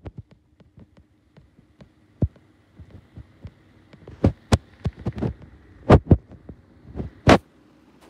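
Schallen 12-inch desk fan running on low while oscillating: a steady low hum with irregular knocks and clicks. The owner puts the noise down to its bad bearings.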